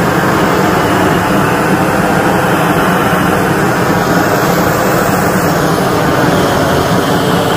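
LPG flamethrower torch burning gas at full flow: a loud, steady rushing noise with no break.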